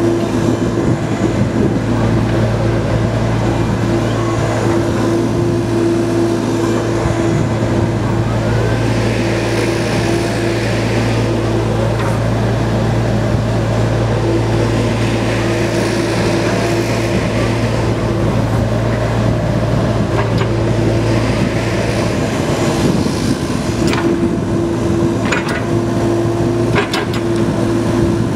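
Kubota diesel engine of a 4-ton mini excavator running steadily under hydraulic load while the boom, arm and bucket swing. A higher rushing sound swells several times as the hydraulics work, and a few sharp clicks come near the end.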